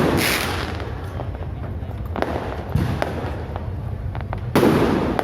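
Fireworks bursting with many sharp pops and crackles throughout. There are loud bangs at the start and again about four and a half seconds in, with smaller bursts between.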